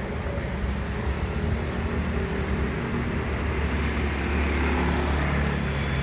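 Steady low rumble of wind on the microphone and street noise heard from a moving bicycle, with a car engine running close by and growing louder in the second half.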